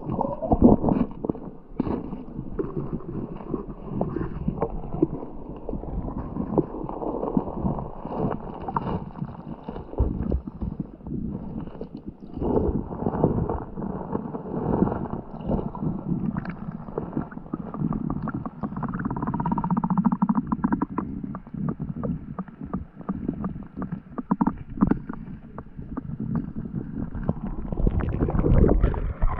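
Water of a small forest stream tumbling over mini waterfalls, churning and bubbling continuously with many small pops and knocks. The sound is muffled and dull, with little high end, as it is when heard under water.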